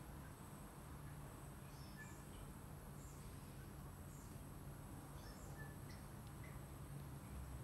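Faint background ambience: scattered short bird chirps over a steady high-pitched insect drone and a low hum.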